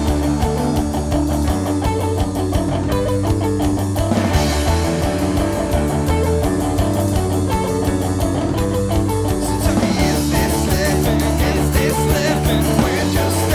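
Guitar-driven punk-rock song playing an instrumental stretch with no singing, its sound thickening about ten seconds in.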